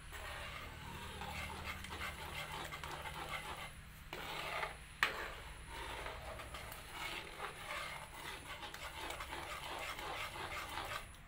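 Metal spoon stirring beaten egg through a simmering curry in a pan: a rhythmic scraping and swishing, with one sharper knock about five seconds in.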